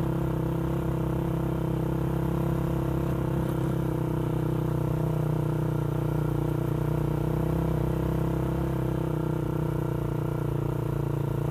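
Motorcycle engine running at a steady, even pitch while riding along.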